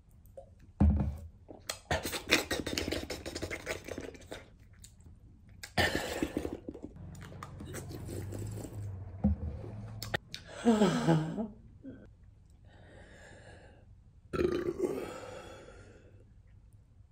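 A man burping and breathing hard in several separate bursts, one a pitched, falling belch, after gulping carbonated water to cool a mouth burning from very spicy ramen.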